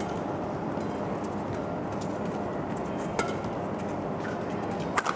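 Steady arena crowd noise with sharp racket strikes on a badminton shuttlecock during a rally, one about three seconds in and a louder one near the end.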